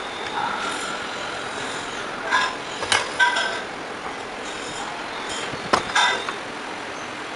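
Aluminium pedestal-fan motor housing parts clinking and knocking against metal tools and the workbench as they are handled, a few sharp knocks a few seconds apart, over a steady workshop background noise.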